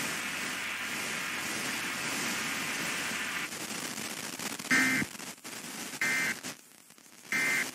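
Steady radio static hiss, then three short, buzzy data bursts about 1.3 s apart: the Emergency Alert System's SAME digital header, sent three times to open a new alert.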